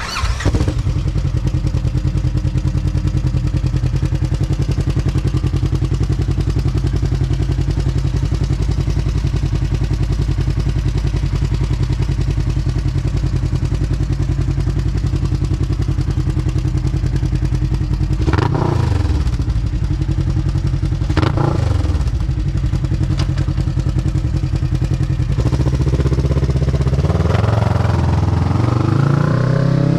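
Polaris RZR 1000's parallel-twin engine, breathing through an HMF Titan XL slip-on glass-pack muffler with no spark arrestor or quiet core, starting up and idling. It is blipped twice about two-thirds of the way in, then revved up near the end. It is loud and echoes in a storage unit.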